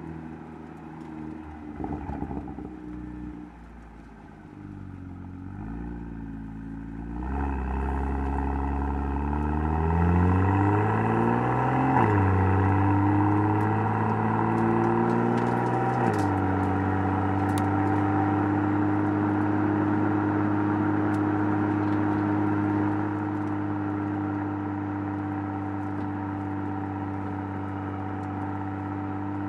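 BMW M2's turbocharged inline-six engine and exhaust accelerating through the gears. The note is subdued at first, then grows louder and climbs in pitch from about seven seconds in, drops at an upshift about twelve seconds in, climbs again, and after a second upshift about sixteen seconds in settles into a steady cruising drone.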